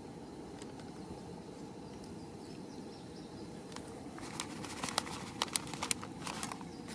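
Gas camp stove burner hissing steadily under a frying pan. From about four seconds in come a run of small sharp clicks and taps as a tortilla is handled in the pan.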